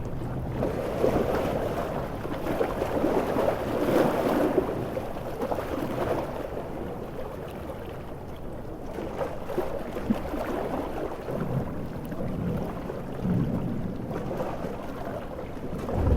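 Stormy-sea ambience: heavy surf surging and washing, swelling loudest a few seconds in and then easing, over a steady wash of rain and wind.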